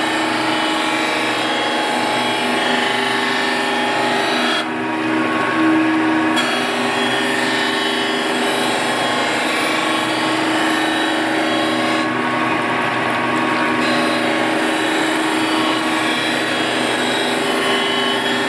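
Surface grinder's wheel grinding a machine table's guideways under a spray of coolant emulsion, taking another 0.02 mm cut to clean up scoring. It makes a steady grinding hiss over a constant hum from the wheel. The upper hiss drops away twice, for a second or two each time.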